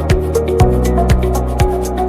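Background music with a steady beat: an electronic track with a deep kick drum about twice a second under sustained synth notes.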